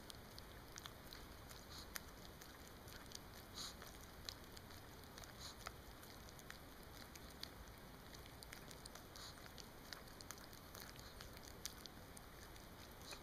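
Chihuahua licking and smacking its lips on sticky peanut butter: faint, irregular wet clicks and smacks of tongue and mouth.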